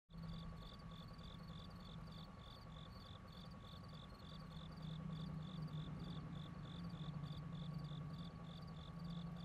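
Faint outdoor ambience: an insect chirping in a steady rhythm, about four chirps a second, over a low steady hum and a thin steady whine.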